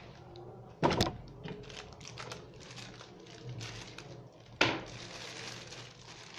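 Small plastic parts of a CCTV camera kit being handled on a table: light clicks and rustling, with two sharp knocks, one about a second in and one past the middle.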